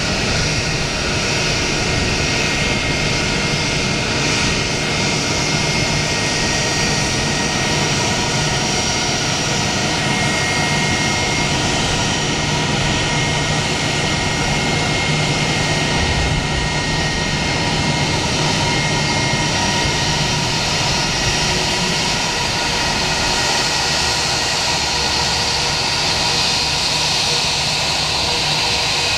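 Airbus A319-131's IAE V2500 turbofan engines running at taxi power: a steady jet whine with several high tones held throughout.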